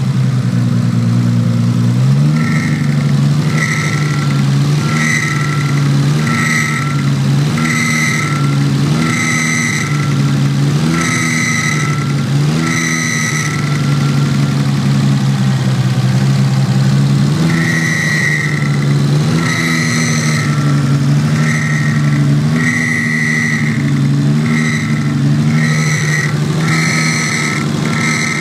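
Toyota Supra's 2JZ straight-six running, with a high-pitched whistling squeal that comes in short pulses about once a second, each matched by a small swell in engine speed, and stops for a few seconds midway. This is an abnormal noise from the throttle body area that appeared after the fuel system was reworked.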